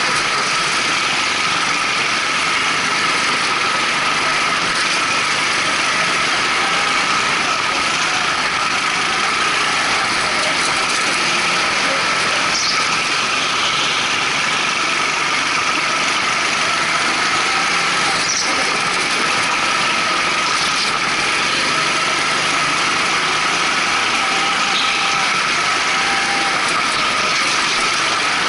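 Rental go-kart powered by twin Honda GX200 single-cylinder four-stroke engines running steadily under way, heard from on board, with a steady high whine over the engine noise.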